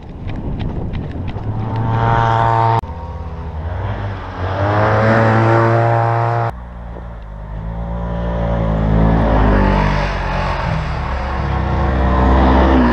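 Quad (ATV) engine heard from on board, rising in pitch again and again as it accelerates along the trail. The sound changes abruptly twice, about three and six and a half seconds in.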